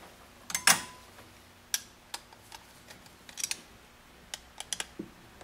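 Irregular small clicks and taps of a Phillips screwdriver and metal parts as a screw is driven into an HID ballast's metal mounting bracket, with a sharper clack about a second in and little clusters of ticks later on.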